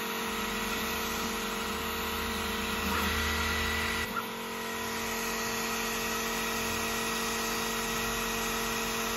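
Air-assist pump humming steadily with a few constant tones while the Ortur Laser Master 3 diode laser engraver runs its cutting pass. A lower hum drops away about four seconds in.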